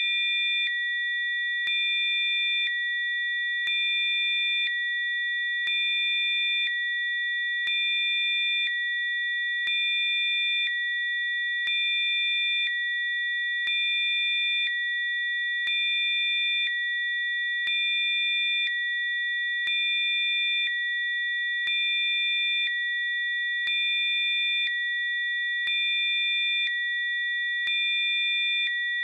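Steady synthesized sine tones: several high pitches held together without a break, with a fainter low tone and the loudness stepping slightly up and down about once a second in an even alternating pattern.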